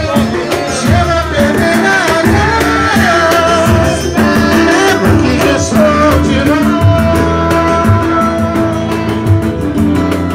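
Live pagode band playing: a voice singing the melody over a tantã and other hand drums, with strummed acoustic strings.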